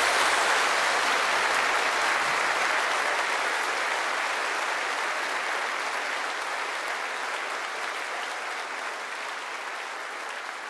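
Applause, a crowd clapping, fading out steadily.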